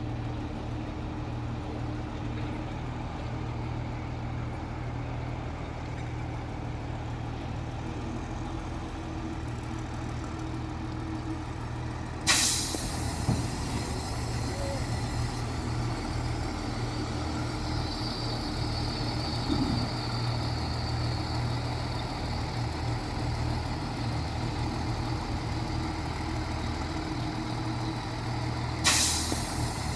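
Heavy diesel engine running steadily, with two sharp hisses of truck air brakes releasing air, about twelve seconds in and again near the end.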